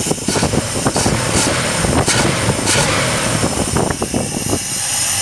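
Plymouth Suburban's carbureted engine being revved with the throttle and catching a misfire, then settling back toward idle near the end. The owner suspects an intake manifold vacuum leak.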